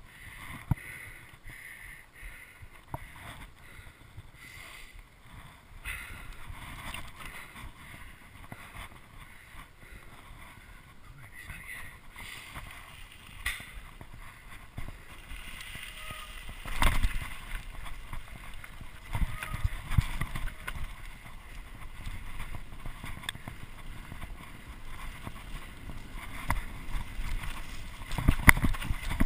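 Mountain bike ridden downhill on wet ground, picked up by a GoPro: a steady rumble of tyres and wind with frequent knocks and rattles from the bike. It grows louder and rougher from about halfway through, with heavier thumps as the bike reaches the dirt trail.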